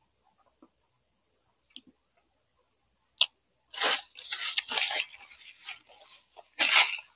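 Close-miked eating: a few soft mouth clicks, then about three seconds of loud, irregular crunching and chewing of food.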